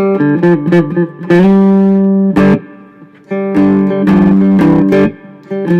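Three-string cigar box guitar with a single-coil pickup, played amplified: picked notes and short riffs, with two chords left ringing for about a second each.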